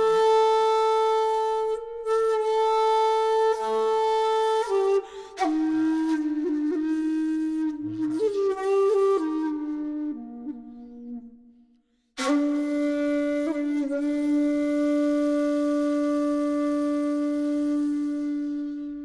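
Solo shakuhachi (Japanese end-blown bamboo flute) playing a slow, breathy phrase: a held note, then a run of shorter notes with slides and ornaments. After a brief pause halfway through comes one long low note, held and fading near the end.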